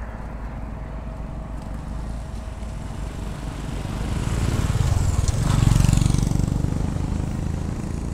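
A motorcycle passing by on the road. Its engine grows louder from about four seconds in, is loudest about six seconds in, then fades away.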